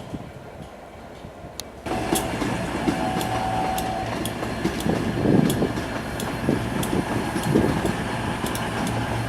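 Train sounds: a locomotive running, with a steady low hum and frequent sharp clicks. The sound jumps abruptly louder about two seconds in.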